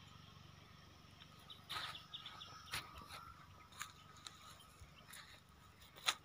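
Faint outdoor ambience with a handful of sharp clicks, the loudest near the end.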